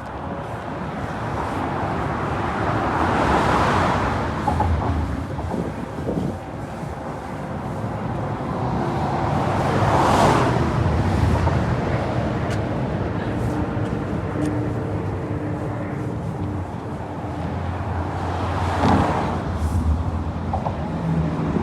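Road traffic: vehicles passing one after another, each swelling up and fading away, three passes in all, over a steady low engine hum.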